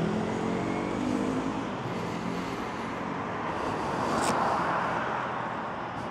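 A car passing by on the road, swelling to its loudest about four seconds in and fading away, with a sharp click at the same moment. A low engine hum dies away in the first two seconds.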